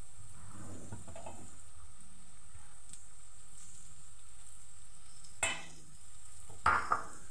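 Paneer cubes frying and sizzling gently in a nonstick frying pan, with a spatula scraping and knocking against the pan twice near the end as the cubes are pushed and lifted.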